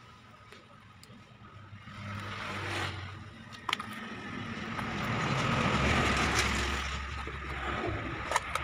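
A motor vehicle running in the background, its noise swelling and loudest about six seconds in. Over it, a screwdriver prying at the rubber boot of a steering rack gives two sharp metal clicks, one in the middle and one near the end.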